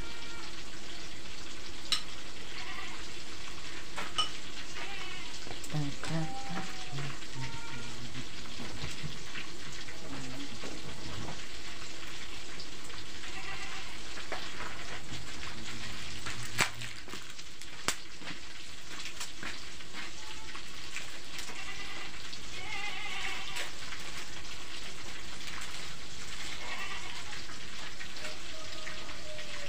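Oil sizzling steadily as food fries in a pan over a wood-fired clay stove. A few sharp knocks break through, the loudest two about two thirds of the way in.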